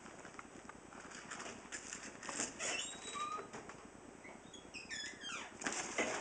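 A dog tugging, shaking and pawing at a fabric bag: rustling and flapping cloth with scattered clicks, a few short high squeaks about five seconds in, and the sharpest, loudest knocks near the end.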